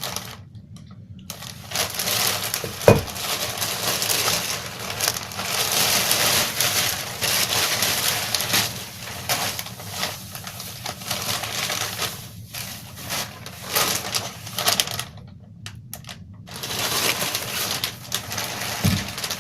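Packaging being unwrapped: a long run of rustling, crinkling and crackling, with pauses, and one sharp knock about three seconds in.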